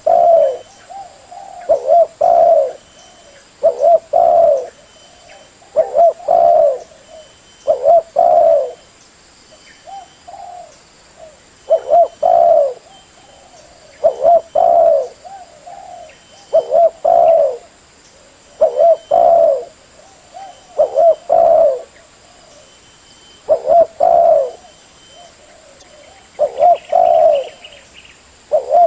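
Spotted dove cooing: short phrases of a few low coos, the last note the longest, repeated about every two seconds with one brief pause partway through.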